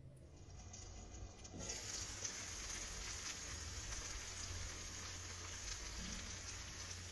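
Shakshuka of eggs, tomato sauce and melted cheese sizzling in a frying pan: a steady hiss that sets in about a second and a half in.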